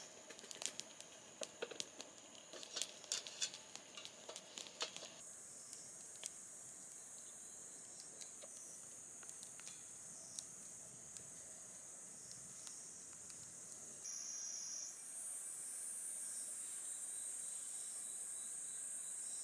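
Insects chirping in a steady high-pitched drone, with scattered light clicks and taps during the first five seconds.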